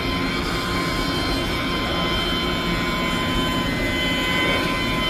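Electric car polisher running at a steady speed with a high whine, its foam pad worked over a car's painted door panel.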